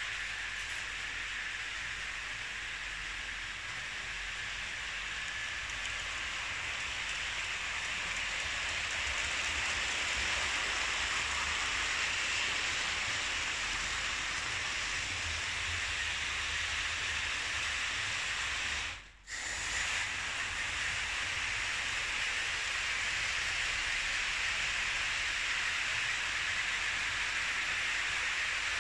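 Märklin H0 model trains running on metal track: a steady hissing rush of wheels and motors, which drops out for a moment about two-thirds of the way through.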